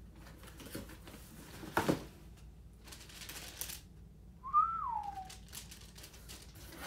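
Cardboard shipping box being handled, with brief rustles and one louder crinkle early on; about halfway through, a single short whistle that rises briefly and then slides down.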